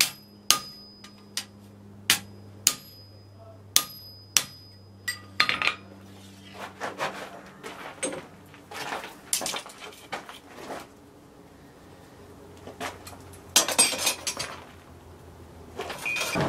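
Hammer striking a chisel held on hot steel bar stock over an anvil, about seven ringing blows in the first four and a half seconds, cutting the bottle opener free of the bar. After that, lighter metal clatter and scraping as the steel is handled.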